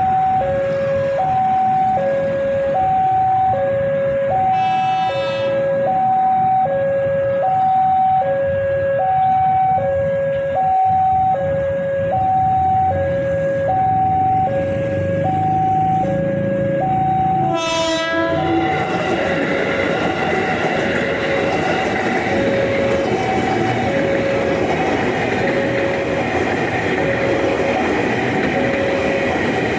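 A two-tone electronic warning alarm alternates between a lower and a higher tone about once a second throughout. A commuter electric train sounds its horn briefly about five seconds in, then blasts it loudly a little past halfway and runs past, its rumble and wheel noise filling the rest.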